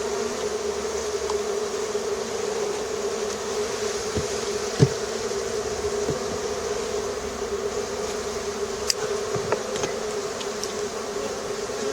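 Honeybee colony buzzing steadily from an opened hive during a frame inspection, with a few brief faint clicks.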